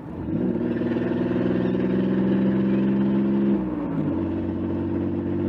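Car engine running through the newly welded exhaust: it revs up just after the start, holds a steady higher speed for about three seconds, then drops back to a lower steady speed.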